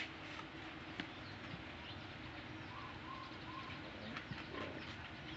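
Quiet background with a few faint short chirping animal calls about halfway through, and small soft clicks.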